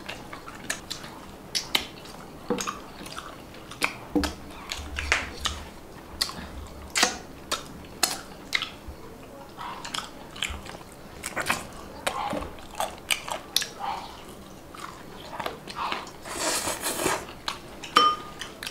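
People eating chicken and rice with their hands: irregular chewing and mouth smacks mixed with small clicks of fingers against china plates, with a brief hissing scrape near the end.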